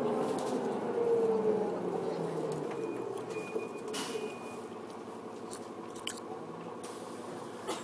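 Engine of construction machinery running, its pitch easing down over the first few seconds and the sound fading, with a few scattered light knocks later on.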